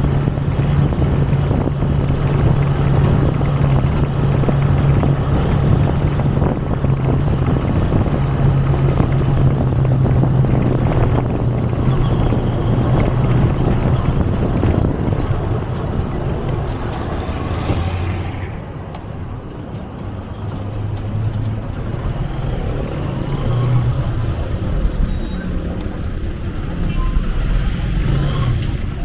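Motorcycle engine running at a steady cruise of about 30–40 km/h. About two-thirds of the way through, its note drops lower and quieter as the bike slows, then builds again near the end.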